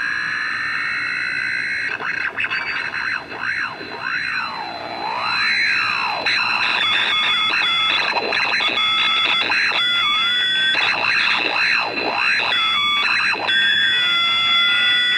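AM radio picking up interference from an NE555-timed MOSFET pulse circuit: whistling tones that glide up and down in swoops over a steady hiss, with a high thin tone that switches on and off. The whistles shift as a knob on the circuit is turned and as the 555 timer flips between operating modes.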